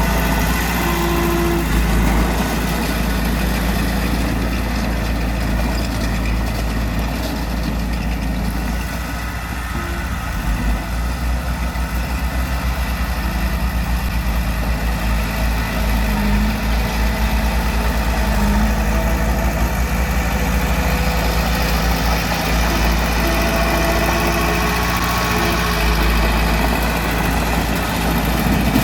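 Diesel engine of heavy earthmoving machinery running steadily at a low, even pitch.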